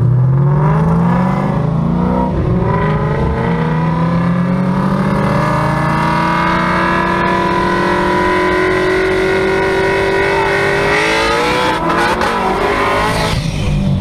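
Shelby GT500's V8 under hard acceleration: the engine note climbs quickly, shifts up about two seconds in, then climbs slowly for most of the time before another shift near the end. Wind rushes past the open top of the convertible.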